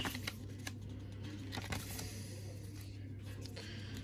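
Pages of a paper booklet being handled and turned: scattered soft rustles and light taps over a steady low hum.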